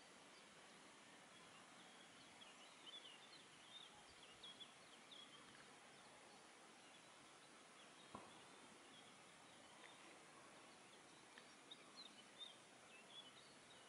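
Quiet outdoor ambience: a faint steady hiss with scattered short, high chirps from small birds, in two spells, and a single sharp click about eight seconds in.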